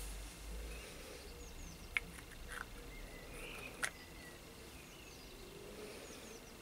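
Light clicks and taps of Bakelite pipe parts being handled as the bowl and its filter insert are taken apart, two sharp clicks standing out about two seconds and four seconds in.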